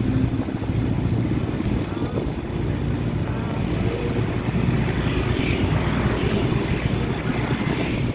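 Road traffic noise heard from a moving vehicle: a steady low engine and road rumble, with cars and motorcycles passing close by.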